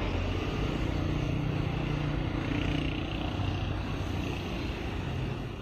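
Steady road traffic noise with a low vehicle rumble, fading away near the end.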